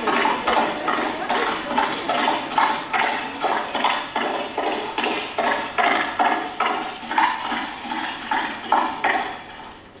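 Clip-clop of horse hoofbeats, a steady even trot of about two or three knocks a second that stops shortly before the end.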